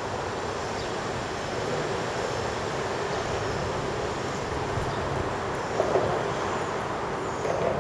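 Steady rumble of vehicles on an elevated structure overhead, heard from underneath, with two brief thumps near the end.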